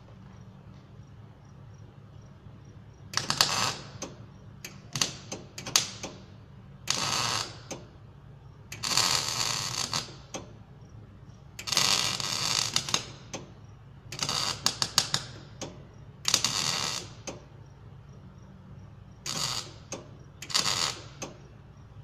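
Gas-shielded wire-feed (MIG) welder arc crackling in about ten short bursts with pauses between, over a steady low hum, as a broken part on a farm implement is welded.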